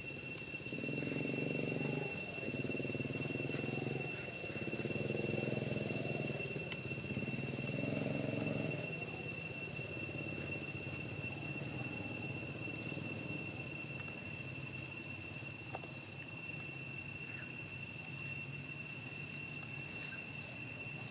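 Steady high-pitched insect drone throughout, with a low engine-like hum that swells and fades in four stretches over the first nine seconds.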